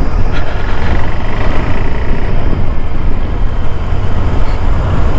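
Single-cylinder engine of a KTM 390 Adventure motorcycle running steadily as it is ridden at low speed, heard from the rider's seat as a loud, even low rumble.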